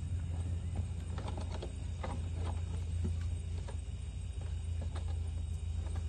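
Light, scattered taps and clicks of a clear plastic bottle and metal snake tongs being handled as a cobra is pushed into the bottle, over a steady low hum.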